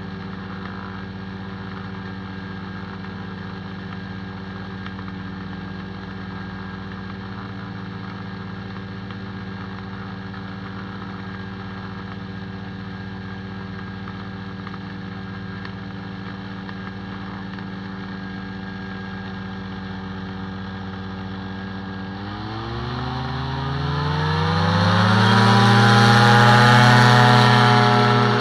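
Stratus IIB microlight's engine and propeller idling steadily, then opened up to full throttle for the takeoff run about 22 seconds in: the pitch rises over a few seconds and the sound grows much louder as the aircraft rolls close.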